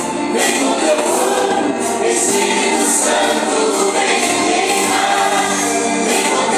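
A group of voices singing a Christian worship song together, with instrumental accompaniment.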